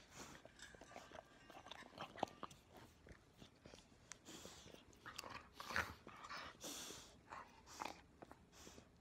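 Rottweiler puppy licking and mouthing: quiet, irregular wet smacks and clicks of its mouth and tongue.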